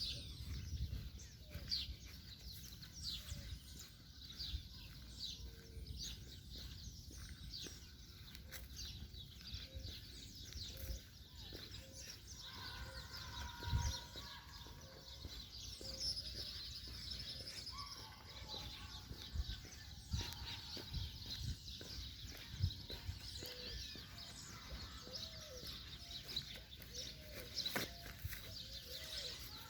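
Several wild birds calling: a steady scatter of short, high, falling chirps, a few longer whistled notes around the middle, and a lower short call repeated about once a second through the second half, over a low rumble.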